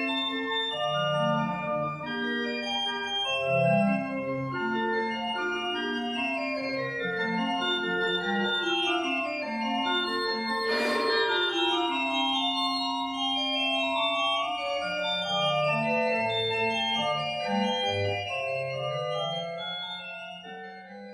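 Organ music playing held chords, fading out near the end.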